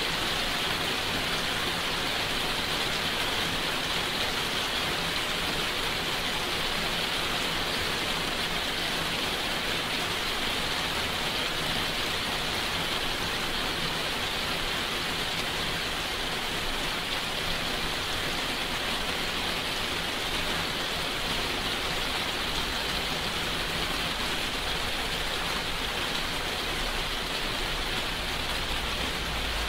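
Steady rain falling, an even unbroken hiss of many drops. A low rumble comes in under it near the end.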